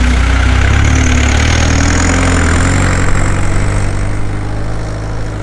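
1985 Volkswagen T3 camper van's engine running as the van drives past close by and pulls away, fading as it goes.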